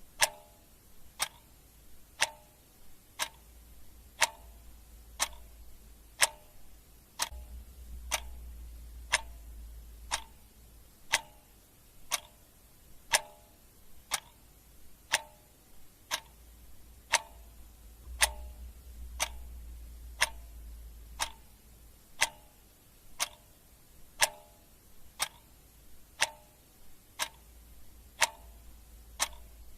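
Clock ticking steadily, one sharp tick about every second, over a faint low hum.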